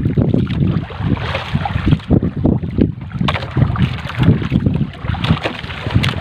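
Wind buffeting the microphone in irregular gusts over sea water washing against the boat, with the rustle of a fishing net being hauled in by hand over the side.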